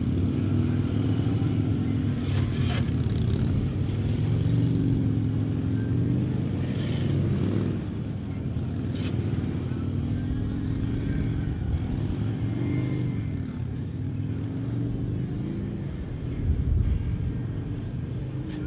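Harley-Davidson police motorcycles' V-twin engines running at low speed, their pitch rising and falling with small throttle changes as the bikes are worked through a tight cone course. A couple of sharp clicks are heard.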